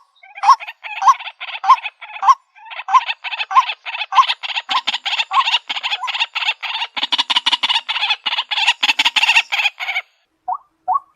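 White-breasted waterhen calling in loud, harsh repeated notes. The notes thicken into a rapid, dense chattering run that cuts off near the end, after which single notes resume at an even pace.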